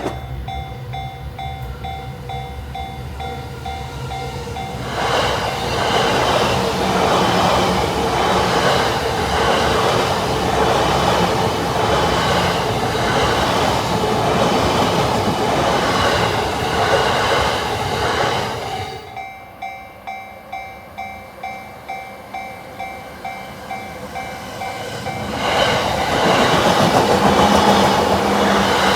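Japanese level-crossing warning bell ringing in quick repeated dings, about two a second. About five seconds in, a JR Yamanote Line electric train passes over the crossing, its wheels clattering over the rail joints and drowning the bell. After the train clears, the bell rings on alone, and near the end another train starts to pass.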